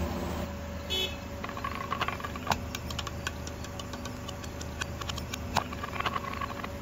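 Car tyre rolling slowly over gritty asphalt: irregular small ticks and crackles of grit under the tread, over a low engine hum.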